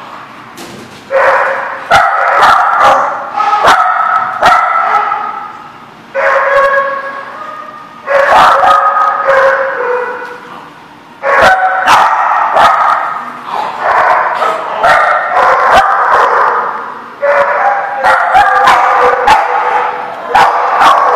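Small dogs barking over and over, in bouts that start suddenly and trail off, with sharp clicks in between.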